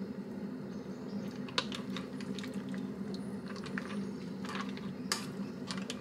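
Wooden spoons stirring miso soup in a stainless steel pot, dissolving the miso paste into the simmering broth, with light clicks and taps of the spoons against the pot every second or so over a steady low hum.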